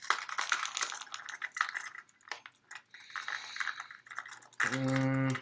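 Hard plastic crankbaits and their treble hooks clicking and clattering against the compartments of a clear plastic tackle box as the lures are handled and one is worked loose. Near the end a man's voice hums a short held note.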